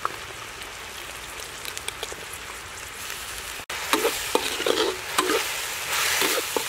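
Sliced beef sizzling in a hot steel wok, then a metal spatula stirring it and scraping the wok in a quick series of strokes from about four seconds in.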